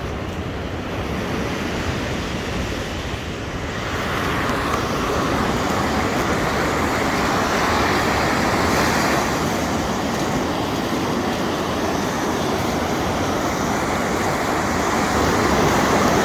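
Steady rushing noise of surf on a rocky shore mixed with wind on the microphone, growing louder about four seconds in.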